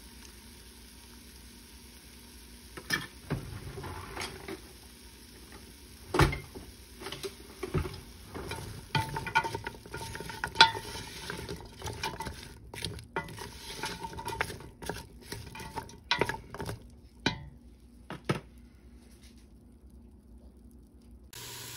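Wooden spoon stirring and scraping sliced onions, baby carrots and garlic around a stainless steel stock pot, with irregular knocks against the pot over a light sizzle as the vegetables sauté to soften. The stirring starts about three seconds in and thins out in the last few seconds.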